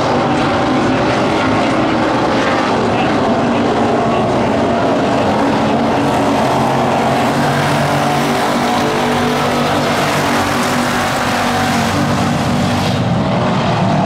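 A field of WISSOTA Street Stock race cars running on a dirt oval, their V8 engines blending into one steady, loud drone.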